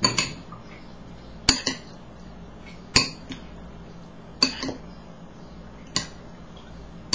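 A spoon clinking against a dish, six sharp clinks at an even pace about every second and a half.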